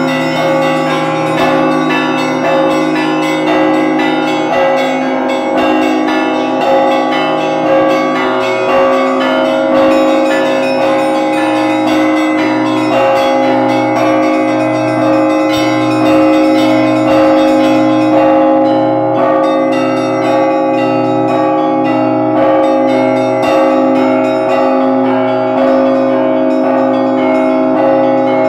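Russian Orthodox church bells rung by hand with clapper ropes (zvon): small bells chiming rapidly over the sustained ringing of the middle bells. From about a third of the way in, a low bell sounds in a steady beat underneath.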